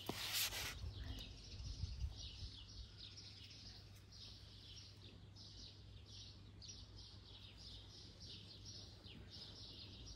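Faint chirping of small birds, short repeated chirps a few times a second, with a brief burst of rustling right at the start.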